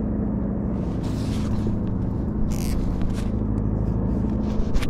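An engine running steadily, a low hum of several even tones, with a few short hissing splashes or gusts over it.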